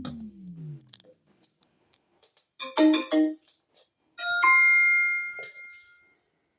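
Electronic prompt tones from Bluetooth speakers being switched off and on: a falling sweep at the start, a short two-note beep near the middle, then a ringing chime that fades out.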